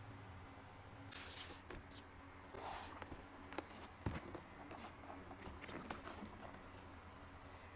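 Packaging being handled and opened: bursts of rustling and scraping, a few light clicks and a soft thump about four seconds in.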